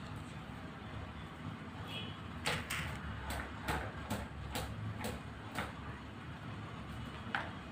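A run of light knocks, about two a second for a few seconds, with one more near the end, as a spin mop and the woven cane tray under it are bumped on a tiled floor.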